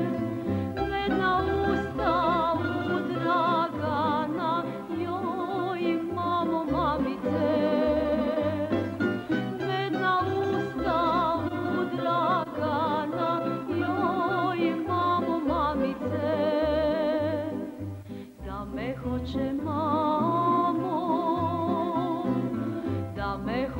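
A woman singing a Bosnian folk song with a wide vibrato, over instrumental accompaniment with a bass line. The singing breaks off briefly about three quarters of the way through, then resumes.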